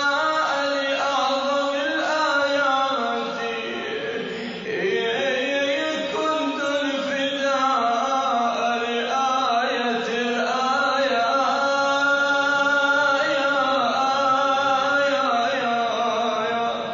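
A man's voice chanting an Arabic devotional supplication in long, melismatic held notes that bend and turn in pitch, with a brief dip in level about four seconds in.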